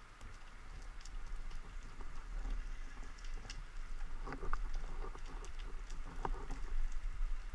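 Underwater ambience picked up by a diver's camera: scattered clicks and crackles over a low rumble, growing louder and busier from about halfway through.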